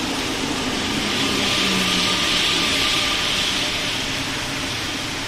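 Rubber-tyred MPL75 metro train rolling into the station, a steady rushing noise that swells about halfway through and then eases off.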